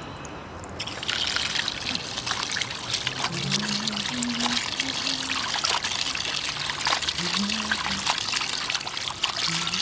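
Water running or pouring, a steady splashing noise that comes in suddenly about a second in.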